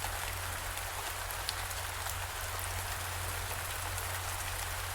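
Steady rain falling: an even hiss with scattered drop ticks over a low, steady hum.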